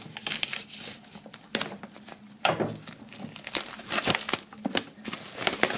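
Plastic shrink-wrap film crinkling and tearing in irregular crackles as it is slit along its sealed seam with a serrated knife and pulled off a cardboard box.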